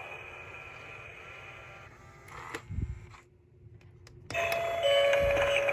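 Gemmy animated coffin eyeball Halloween doorbell: its previous sound clip fades out, a short low thump comes a little before halfway, a second of quiet follows, then the doorbell's chime starts, a higher note and then a lower one held steady.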